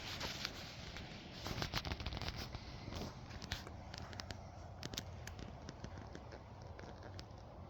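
Irregular rustling and crackling with many sharp clicks, loudest about two seconds in and thinning out after about five seconds.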